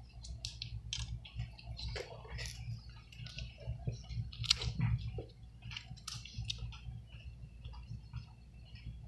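Scattered small clicks and taps of a screwdriver, tweezers and tiny screws on the iPhone 6 Plus during reassembly, irregular with a slightly louder click about four and a half seconds in. A steady low hum runs underneath.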